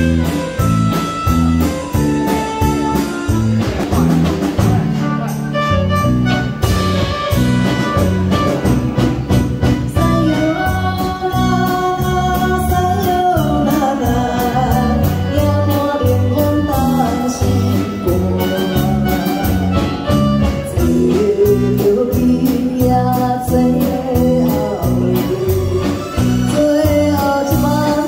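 Amplified pop song performed on a small stage: backing music with a steady beat and electric guitar, and a woman singing into a handheld microphone over it, her melody coming through more clearly partway in.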